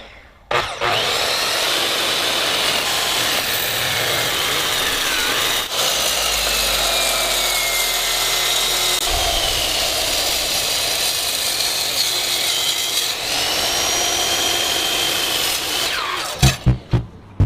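Power tool running steadily for about fifteen seconds, a dense grinding noise with a whine that drifts in pitch, typical of a saw cutting. It starts just after the beginning and cuts off near the end.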